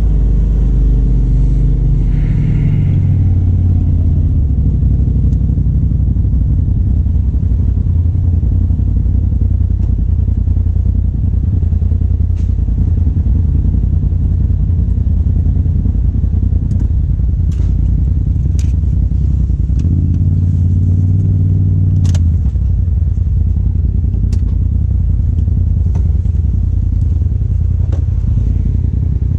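Polaris RZR side-by-side's engine running at trail speed, its note rising and falling briefly near the start and again about two-thirds of the way through. Scattered sharp clicks and knocks come through over the engine in the second half.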